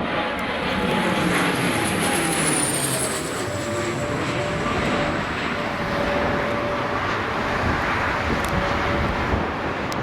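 Airliner's jet engines on landing approach: a rushing roar with a whine that falls slowly in pitch as the plane passes, mixed with storm-force wind.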